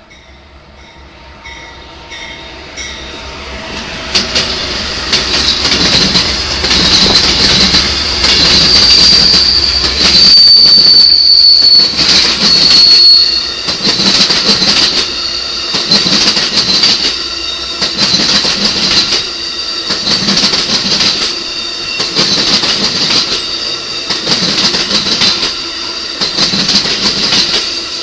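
A train approaches and grows louder over the first few seconds, then its cars roll past with an even, repeating rhythm of wheels clicking over rail joints. A steady high-pitched wheel squeal runs through the passage and is sharper for a few seconds near the middle.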